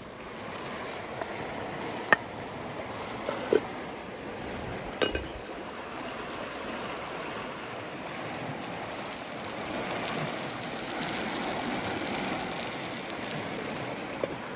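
Stream water running steadily, with a few sharp clinks and knocks in the first five seconds, the first the loudest.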